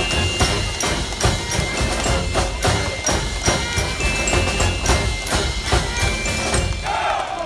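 Military brass band playing with a steady drum beat. The music ends about seven seconds in and the crowd starts cheering.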